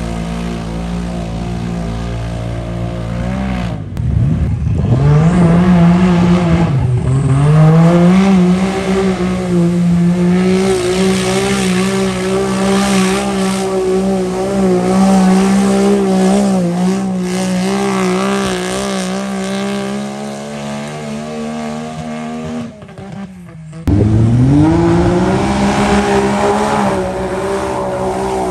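Mud bog race truck's engine: steady lower revs for the first few seconds, then revved hard about four seconds in and held at high revs. Near the end it drops off abruptly, then revs up again.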